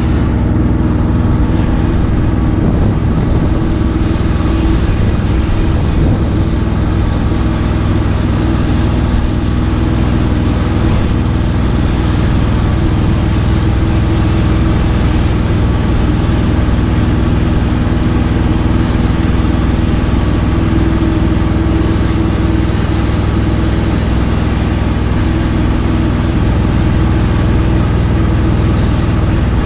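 An engine running steadily at a constant speed, with no change in pitch.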